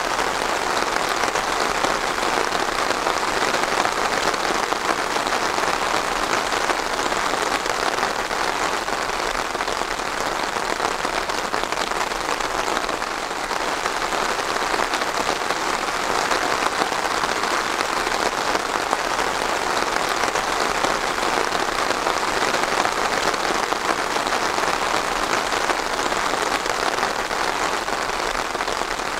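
Steady, dense rain falling, an even hiss of many drops with no let-up.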